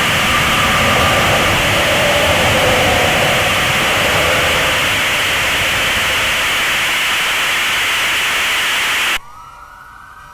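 Loud, steady rushing noise like static that cuts off abruptly about nine seconds in; a faint rising tone follows.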